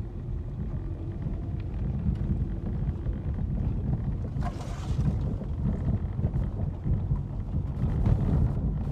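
Wind buffeting the microphone: an uneven low rumble, with a brief rustling hiss about four and a half seconds in.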